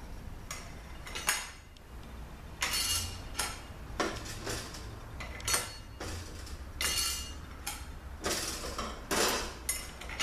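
Overdrive clutch plates of a 62TE automatic transmission clinking and rattling against each other and the input drum as they are handled and stacked into it. The sound comes as a string of irregular metallic clinks.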